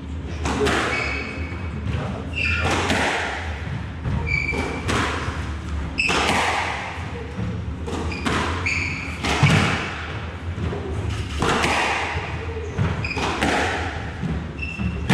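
Squash rally: the ball is struck by the rackets and thuds off the walls again and again at an uneven pace, with short squeaks of shoes on the wooden court floor, all echoing in the enclosed court.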